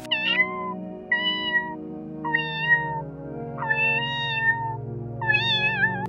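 A cat meowing five times, each meow half a second to a second long and about a second apart, the last one wavering in pitch, over soft background music.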